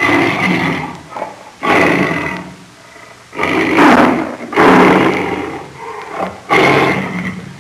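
A large animal calling loudly about five times in a row, each call lasting roughly a second, with short pauses between.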